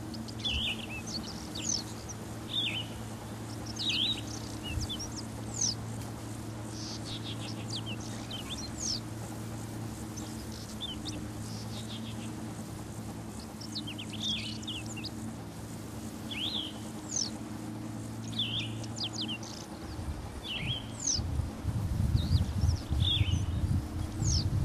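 Small birds chirping over and over in short, sharp falling notes, one every second or so, over a steady low hum. A low rumble builds near the end.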